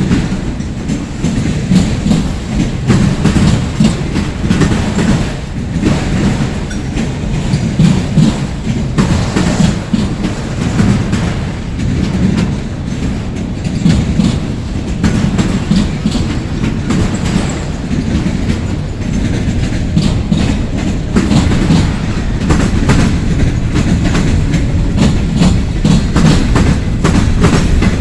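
Long Norfolk Southern freight train rolling past, a steady low rumble with a constant run of clicks and knocks as its wheels pass over the rail joints.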